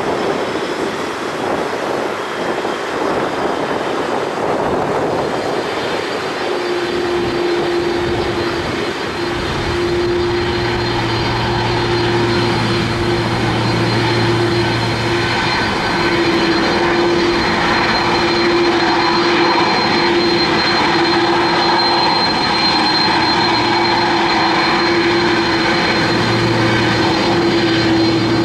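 Airbus A330-300's General Electric CF6 turbofans idling as the airliner taxis past, a steady engine whine. A strong hum comes in about six seconds in, and the sound grows slightly louder as the jet nears.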